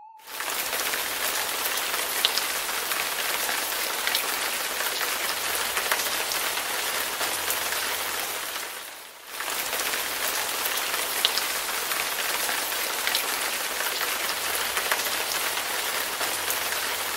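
Steady rain falling, a dense even hiss with scattered sharper drop ticks. It fades away briefly about nine seconds in and comes straight back.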